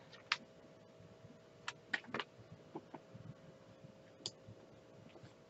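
Quiet, scattered light clicks and taps, about seven in all, from small plastic diamond-storage bottles and a pen being handled, over a faint steady hum.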